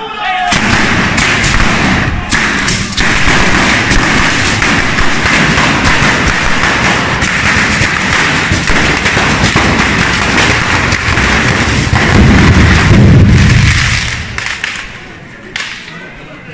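A batteria, a long string of firecrackers laid along the street, going off in a rapid, continuous crackle of bangs. It starts about half a second in, turns heavier and deeper near the end, then dies away in the last couple of seconds.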